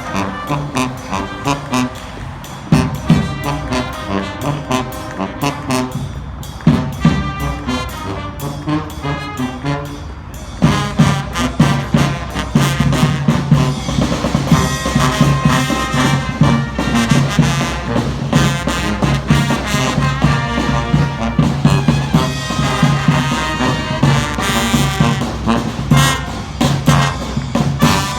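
Brass band playing an upbeat, rhythmic tune with horns over a steady beat, growing louder about ten seconds in.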